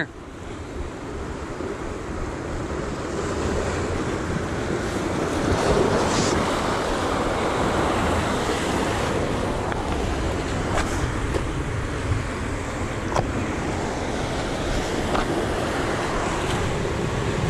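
Ocean surf washing and breaking against rocks, with wind buffeting the microphone. A few faint clicks sound over it.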